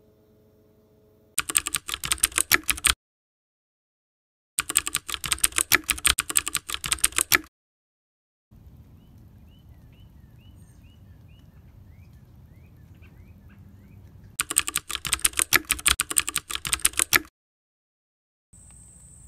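Computer-keyboard typing in three bursts of rapid keystrokes, the first about a second and a half long, the others about three seconds each. Between the second and third bursts there is a stretch of soft outdoor background with a few faint short chirps.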